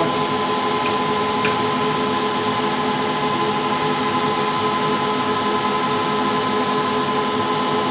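Steady machine hum and whir of a running Liebert eXL 200 kVA UPS, with several constant high-pitched whining tones over it.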